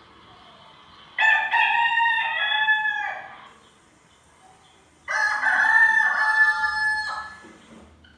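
A rooster crowing twice, each crow a long call of about two seconds with a pause of about two seconds between them.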